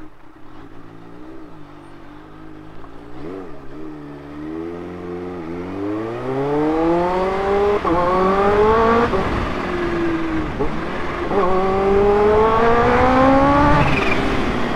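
Kawasaki Ninja H2's supercharged inline-four engine, heard from the rider's seat: low revs with small throttle blips at first, then accelerating from about five seconds in, its pitch climbing with several sharp drops as it shifts up through the gears.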